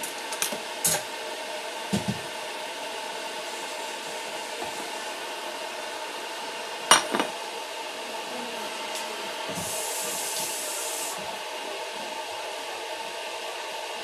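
Kitchen handling sounds: a few light knocks and clinks of dishes or utensils, the sharpest knock about seven seconds in, over a steady whir. A brief hiss comes in about ten seconds in.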